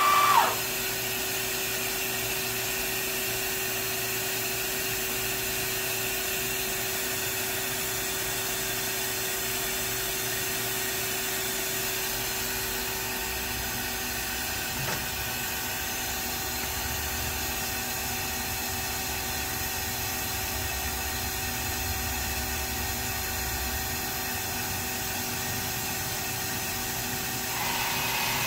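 Ganesh Cyclone 32CS CNC turning center: a live-tool spindle's high whine at 2000 RPM cuts off about half a second in, leaving the steady hum of the machine running. Near the end a louder running sound starts up again.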